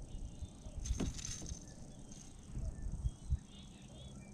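Small birds chirping faintly and repeatedly, with a sharp swish about a second in and a few low knocks of handling noise near the middle.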